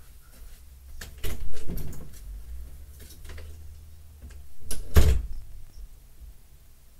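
Knocks and bumps of objects being handled, a cluster about a second in and one loud thump about five seconds in, over a low rumble.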